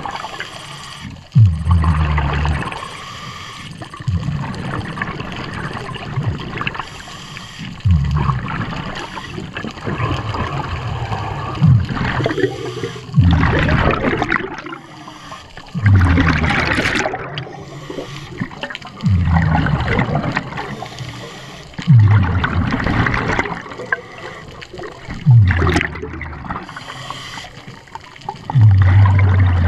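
Scuba diver breathing through a regulator underwater: exhaled bubbles rumbling and gurgling in bursts that start sharply and come about every three seconds, with a hissing inhalation between some of them.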